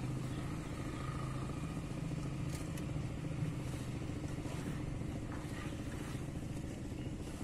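An engine running at a steady idle, a low even hum, with a few faint clicks about three seconds in.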